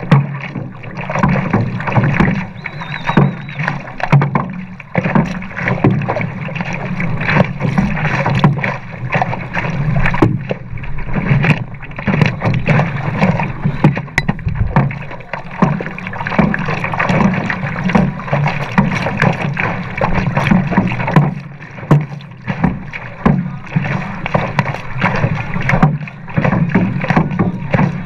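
Water splashing and rushing close against a board-mounted camera as a stand-up paddleboard is driven hard through choppy water, with irregular splashes from the paddle strokes and the board's nose slapping the water.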